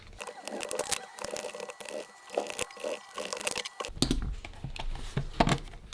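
Hands handling small parts, foam pads and plastic: light rustling, crinkling and small clicks, with a faint steady high tone through the first few seconds.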